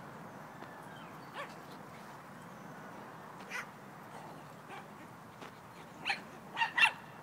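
Dogs barking in short, separate barks: a few faint ones, then three louder barks close together near the end.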